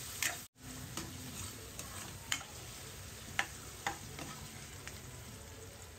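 Sliced onions, garlic and curry leaves frying gently in oil with a low sizzle while a metal spoon stirs them, scraping the pan and giving a few sharp clicks against its side.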